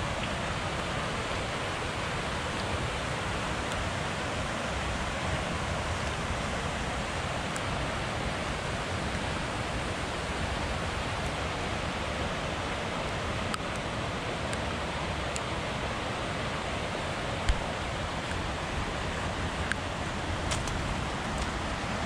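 Steady rushing of running water from a rainforest creek, with a few faint clicks and one short knock about three-quarters of the way through.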